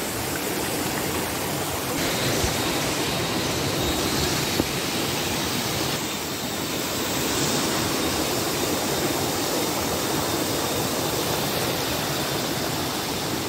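Muddy, rain-swollen stream rushing over rocks in a steady, even rush of water. One brief knock sounds about four and a half seconds in.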